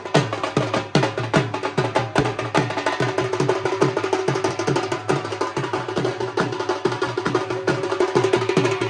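Dhol drum played in a fast, driving rhythm: rapid, evenly spaced strikes with deep bass thuds that drop in pitch. A steady held note sounds over the drumming from about three seconds in.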